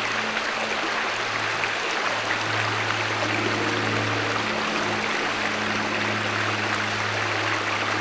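Shallow rocky creek rushing over stones in white-water riffles: a steady, even rush of water.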